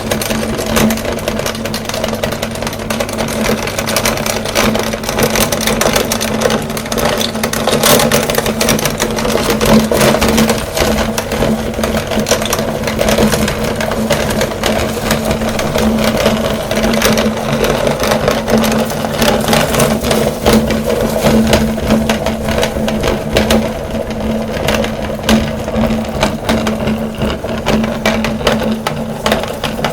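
Electric meat grinder motor running steadily under load as it grinds fruit candy, with a constant hum and dense, irregular crackling clicks throughout.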